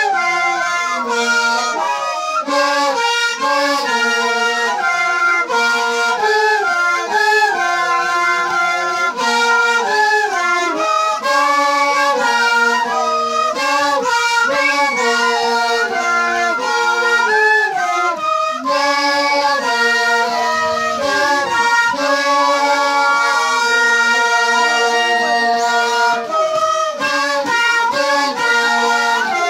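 A band of Andean pinkillo duct flutes playing a stepping melody together, many flutes sounding at once in loose unison.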